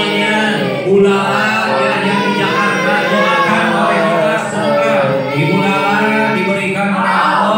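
Group of voices chanting an Islamic tawasul prayer recitation together, led by a man on a microphone, in a steady, continuous flow.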